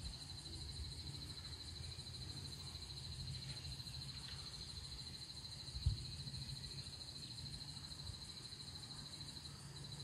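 Insects trilling: a steady, high, finely pulsing trill that carries on throughout. Under it runs a low rumble, with a brief low thump about six seconds in.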